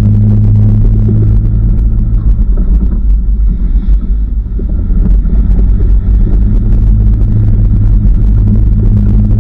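Jeep Cherokee running as it drives off-road: a loud, steady low engine and drivetrain rumble that eases briefly a few seconds in, then comes back up.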